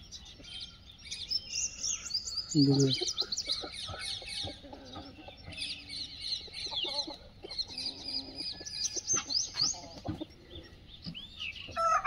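A flock of chickens clucking and chirping: a steady stream of quick, high chirps with lower clucks mixed in.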